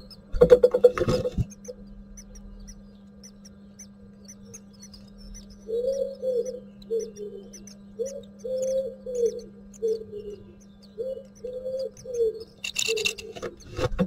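A dove or pigeon cooing in repeated phrases of low hooting notes, picked up from inside a great tit nest box over a steady low hum. Short bursts of rustling in the nest box come near the start and near the end, with faint high cheeping from the nestlings.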